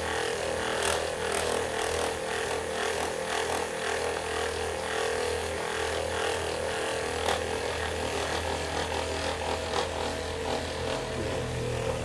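Handheld percussion massage gun running with a steady hum while its head pulses against the muscles of a person's shoulder.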